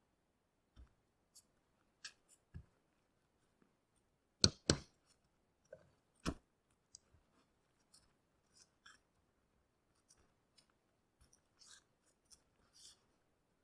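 Scattered taps, clicks and knocks of a hand tool working at nailed wooden battens on a felt-covered roof, prying them loose. The loudest are two sharp knocks in quick succession about four and a half seconds in and a third about two seconds later; the rest are faint ticks.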